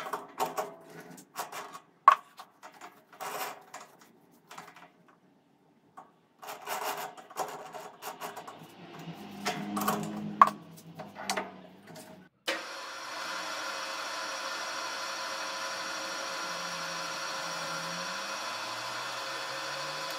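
Chuck key turning in a metal lathe's three-jaw chuck, with irregular metallic clicks and clanks as the jaws are tightened. About twelve seconds in, a machine's steady hum with several even tones starts abruptly and runs on.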